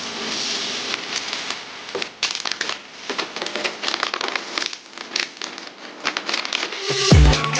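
Plastic packaging being handled and unwrapped, crinkling with many small crackles. Music with a heavy bass comes in near the end.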